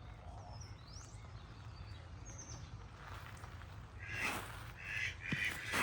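Birds calling: a few thin, high chirps, then a run of short, repeated calls from about four seconds in, over a steady low rumble.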